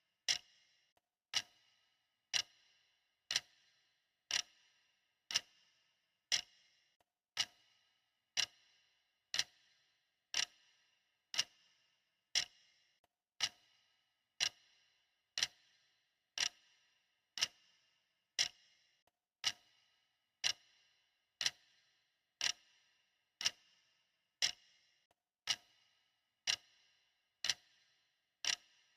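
Clock ticking steadily, one sharp tick about every second, each with a short ringing tail.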